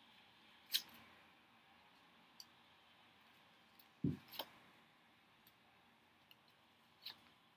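Tarot cards being shuffled by hand: a few scattered soft clicks and card slaps, with a single low thump about four seconds in.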